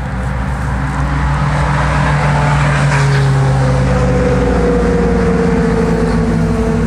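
A motor vehicle's engine running steadily and loudly, growing louder over the first couple of seconds, with a hum whose pitch slowly drops in the second half, as of a vehicle passing on the road close by.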